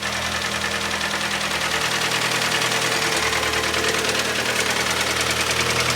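Hyundai ix35's 2.0-litre G4KD four-cylinder petrol engine idling with a heavy, rapid, regular knock: the sign of scored (scuffed) cylinder walls.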